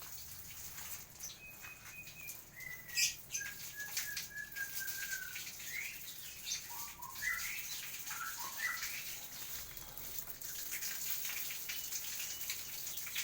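Caged songbirds calling with short whistled notes and chirps, mostly in the first half, amid wing flutters and light clicks and patter, over a steady high hiss.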